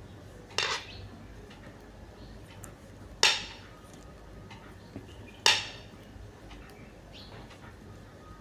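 Knitting needles clicking together three times, a couple of seconds apart, as stitches are purled, with faint small ticks in between.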